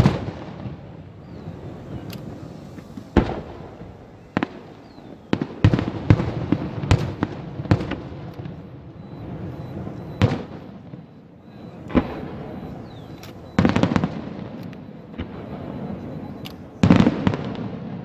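Fireworks display: aerial shells bursting in a string of sharp bangs, each trailing off in an echo, over a continuous low rumble. Quick clusters of bangs come about six seconds in, around fourteen seconds, and near the end.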